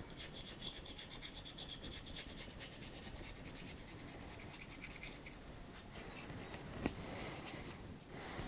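Quick run of short scratching or rubbing strokes, several a second, giving way to a brief hiss near the end.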